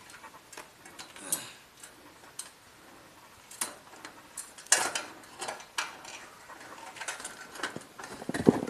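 Scattered metallic clicks and knocks of mountaineering gear on an aluminium ladder, irregular rather than rhythmic, with one sharper knock about halfway through and a busier cluster near the end.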